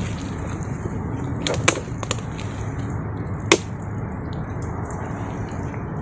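A hand digging and groping in wet mangrove mud inside a mud crab burrow: a steady low rumble of handling noise with a few sharp snaps, the loudest about three and a half seconds in.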